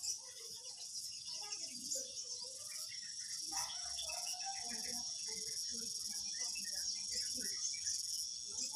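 Crickets chirping in a steady high-pitched chorus, with faint scattered voices and chirps underneath.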